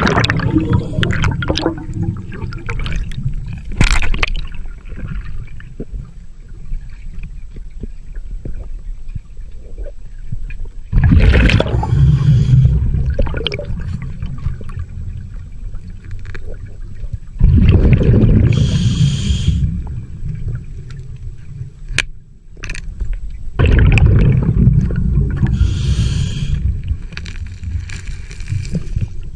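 Underwater gurgling and bubbling from a scuba diver, with a louder rush of exhaled bubbles about every six seconds over a steady low rumble of moving water.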